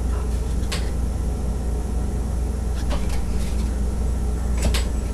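A steady low hum with a few faint, short crackles of card and pack handling, about three in all.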